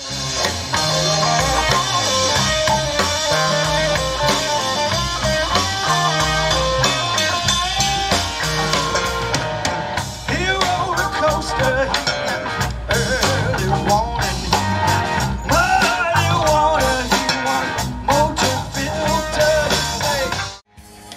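Live rock-blues band playing: drums, bass and guitar, with some singing. It stops abruptly near the end.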